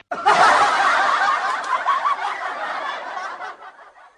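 Snickering laughter sound effect, lasting about three and a half seconds and fading out near the end.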